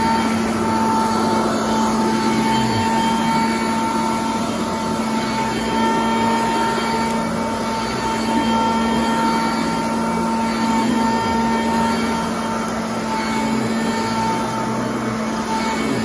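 Sanitaire commercial upright vacuum cleaner running steadily, its motor giving a constant whine, as it is pushed back and forth over frieze carpet.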